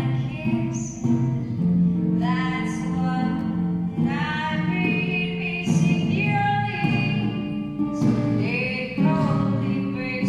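A woman singing a slow melody with some long held notes that waver in pitch, accompanied by an acoustic guitar.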